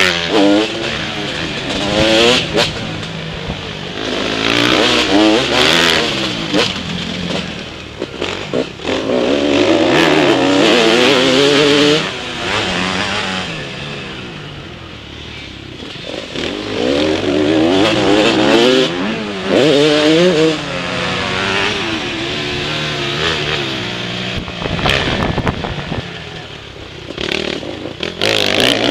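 Motocross dirt bike engine heard from the rider's helmet, revving hard and falling back again and again as the rider accelerates, shifts and backs off through the turns and jumps, easing off for a couple of seconds about halfway through.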